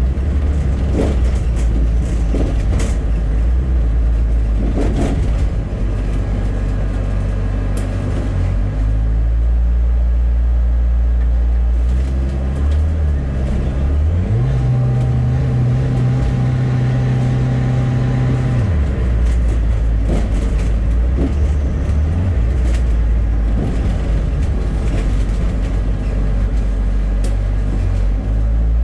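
Rail replacement bus driving, its engine running with a steady low drone; about halfway through the engine note rises, holds for a few seconds as the bus pulls along, then drops back.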